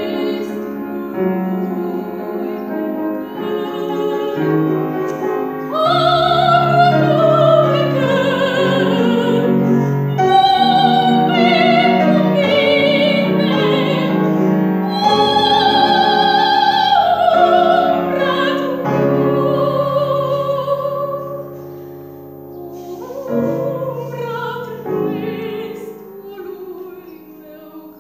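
Female classical singer singing an art song in operatic style with a wide vibrato, accompanied by piano. Her long held phrases are loudest through the middle; near the end the voice drops back to a short quieter phrase while the piano carries on.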